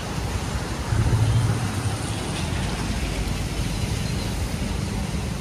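Outdoor street noise: traffic on a wet road with wind rumbling on the microphone, the rumble swelling briefly about a second in.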